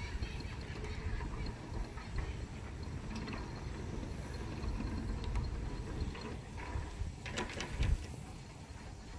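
Aluminium sliding driveway gate opening under its electric gate operator: a steady low rumble of the motor and the gate rolling along its track. A short clatter and a knock come near the end.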